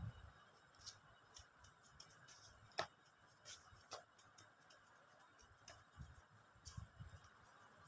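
Near silence with a few faint, irregular taps and clicks from gloved hands handling and pressing dough on a plastic cutting mat, the sharpest click about three seconds in.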